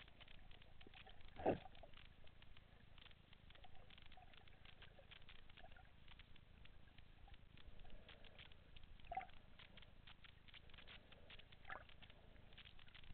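Faint underwater crackling and clicking, with one louder knock about a second and a half in and two softer ones later.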